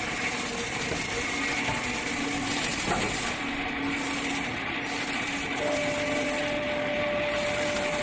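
Plastic pipe belling (socketing) machine running as the pipe is fed into the socketing heater: a steady whirring, hissing machine noise with a thin high whine, one knock about three seconds in, and a steady lower hum that starts a little before six seconds in.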